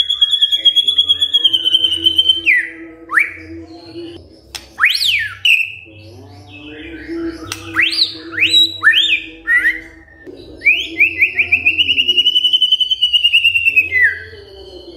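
White-rumped shama singing loudly: a long, rapid, buzzy trill at the start, then loud swooping whistles that rise and fall, a quick run of about five rising whistles, and another long rapid trill that ends in a falling note.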